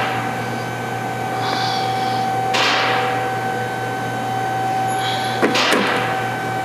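Tool chest drawers and tool cases being handled: three brief sliding, rustling sweeps, about 2.5 to 3 seconds apart, over a steady electrical hum.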